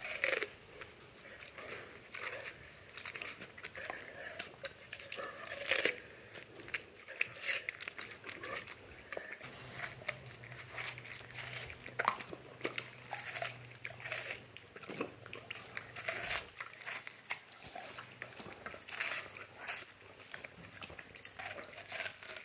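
A Bernese Mountain Dog and a yellow Labrador biting and chewing watermelon, with many short, crisp crunches as the fruit and rind break.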